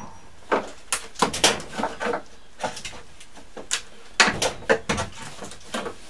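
Hammer blows on a wooden pallet: about a dozen sharp knocks at an irregular pace, loosening boards to take the pallet apart.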